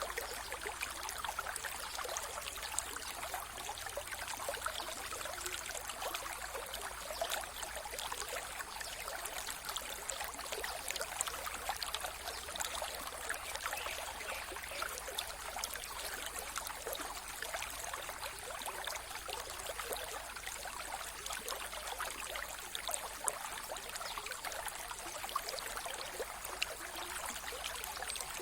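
Mountain river water flowing over stones, a steady rushing with fine trickling and splashing.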